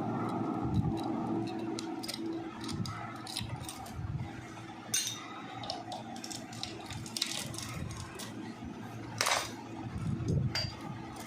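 Metal tools and engine parts clinking and rattling in irregular short knocks while a motorcycle engine is being dismantled, with one louder knock late on.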